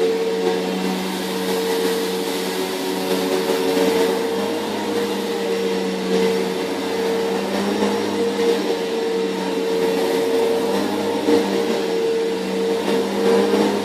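Bissell PowerForce bagged vacuum cleaner running at full speed, a steady motor whine with airflow hiss as it vacuums up debris.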